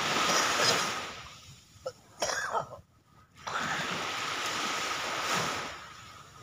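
Small waves washing up on a pebbly shore in two swells of hiss, one at the start and one from about three and a half seconds in, with a brief sharper sound between them.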